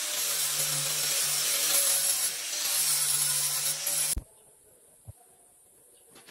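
Angle grinder with a disc grinding the edge of a stone ledge slab: a steady rough grinding noise over the motor's hum, which cuts off abruptly about four seconds in. Only a couple of faint knocks follow.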